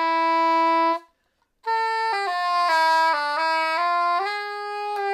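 Small plastic saxophone playing a simple tune: a held note, a short break for breath about a second in, then a run of notes stepping up and down.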